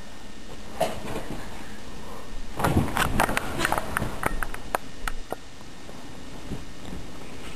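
A quick, irregular run of clicks and knocks lasting about two seconds, starting a couple of seconds in, over a steady background hiss.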